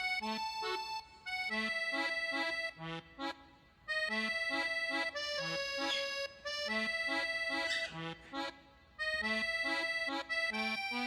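Background instrumental music: a sustained reedy melody over a bouncing bass line, in short phrases with brief breaks between them.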